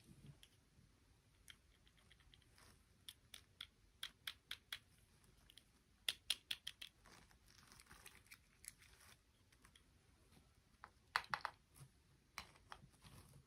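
Light, sharp clicks and taps of small hard plastic pieces being handled, coming in quick runs of several clicks with short pauses between, loudest about halfway through and again near the end.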